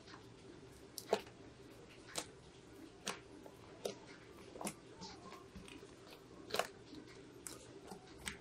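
Thick slime being kneaded and pressed by hand, trapped air popping out with sharp clicks about once a second and a short gap in the middle.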